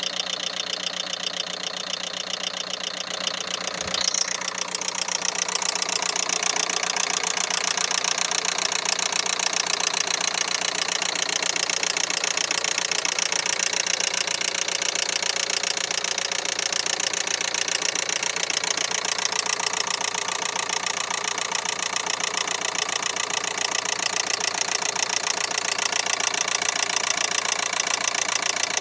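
Renault K9K 1.5 dCi four-cylinder diesel idling with a steady, rapid knock, a little louder from about four seconds in. The owner puts the knock down to the timing belt having jumped one tooth.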